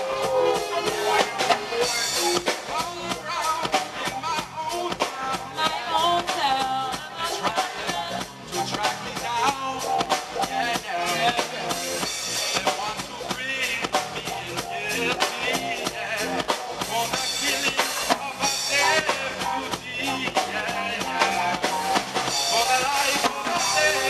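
Live reggae band playing: drum kit, electric guitar, bass and keyboard, with a male vocalist singing into a microphone over the groove.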